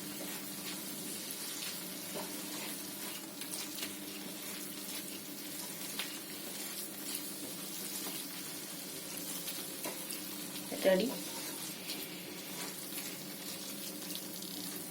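Tomato bhaji simmering and sizzling in a tava on the lit gas stove, a steady fizzing with a few light taps.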